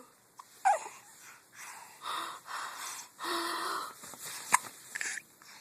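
A baby hiccuping and breathing in short breathy gasps, with a sharp, sudden hiccup about four and a half seconds in.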